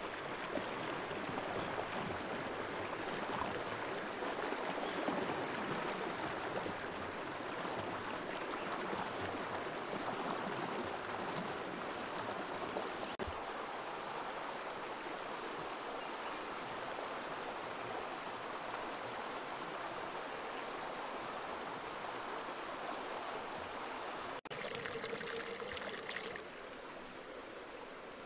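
Shallow stream running over rocks: a steady rush of flowing water, dropping a little in level for the last couple of seconds.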